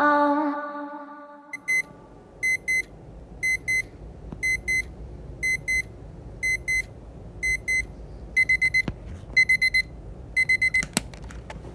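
Small round alarm clock beeping: high double beeps about once a second, which quicken into runs of four beeps near the end and then stop.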